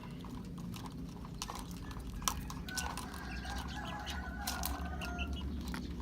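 Chickens calling faintly in the background, with a few light clicks and taps and a steady low hum.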